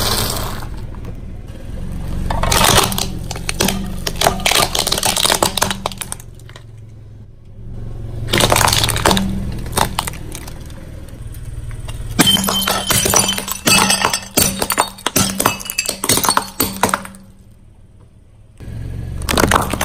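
Car tyre rolling over and crushing brittle objects, in three bouts of crunching and cracking. Ceramic plates shatter with sharp clinks in the last bout.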